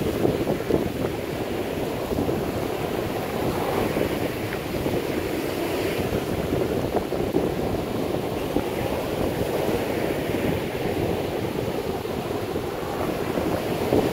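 Rough surf breaking and washing up a sandy beach in a steady rush, with strong wind buffeting the microphone.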